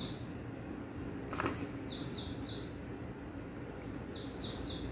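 A small bird chirping in two quick runs of three or four high chirps, over a steady low background hum. There is a single soft knock about a second and a half in.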